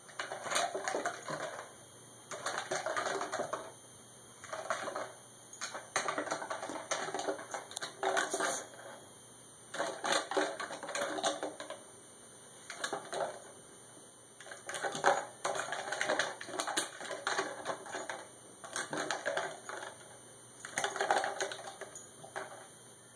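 Plastic water bottle with dog food inside crackling and clattering as a Yorkshire terrier pushes and bites at it, in bouts of about a second with short pauses between them.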